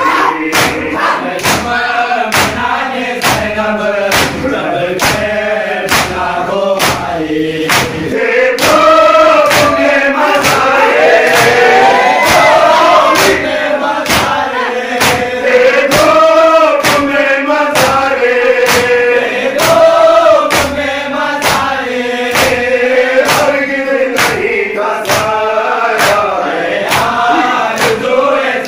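A group of men chanting a noha (mourning lament) in unison behind a lead singer on a microphone. Hand slaps on bare chests (matam) keep a steady beat, about one and a half a second, through the whole chant.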